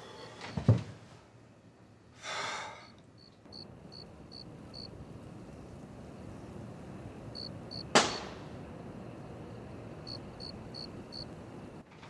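Crickets chirping at night in short groups of high chirps, with a dull thud about a second in, a brief pitched call around two seconds in, and a sharp crack about eight seconds in.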